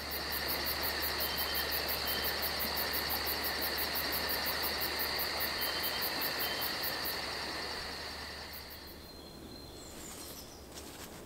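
Crickets chirping in a steady high trill, night-time ambience, fading out over the last few seconds.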